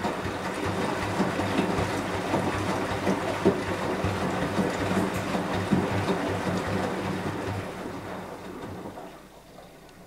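Beko WMY 71483 LMB2 front-loading washing machine tumbling a wash load: the inverter motor hums as the drum turns, with wet laundry and water sloshing and falling inside. The drum then winds down and stops about nine seconds in.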